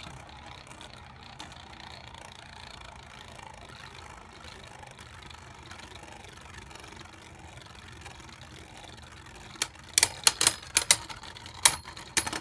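Two Beyblade Burst spinning tops whirring steadily on the plastic stadium floor. Near the end comes a quick run of sharp plastic clacks as the tops strike each other.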